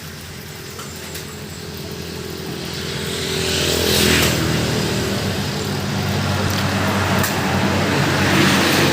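A motor vehicle's engine running close by, getting louder over the first few seconds and then running steadily at its loudest.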